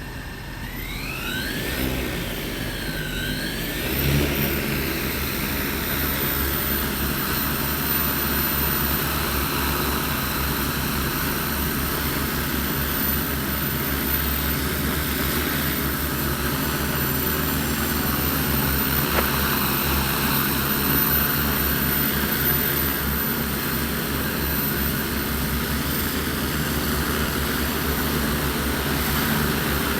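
Multirotor agricultural spraying drone (15-litre tank) running its electric motors and propellers: a whine that rises and falls in pitch for the first few seconds, then from about four seconds in a louder, steady propeller drone.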